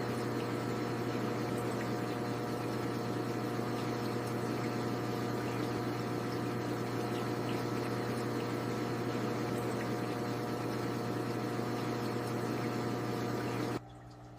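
Aquarium water bubbling and trickling over a steady pump hum. The sound drops sharply in level near the end.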